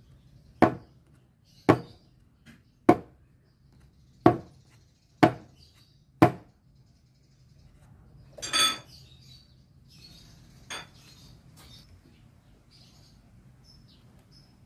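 Metal loaf tin of cake batter knocked down on the counter six times, about once a second, to settle the batter and release air bubbles. Then one longer clank with a brief metallic ring, and a small knock a couple of seconds later.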